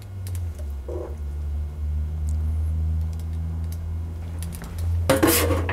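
Scattered light clicks, then about five seconds in a short loud clatter of cookware as a pan and serving utensil are handled. A steady low hum runs underneath.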